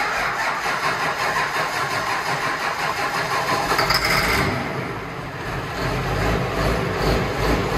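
Diesel engine of a 4.1 Limited Pro Stock pulling tractor cranking and starting: it grinds over for about five seconds, with a brief whine near four seconds, then catches and runs with a low, evenly pulsing idle.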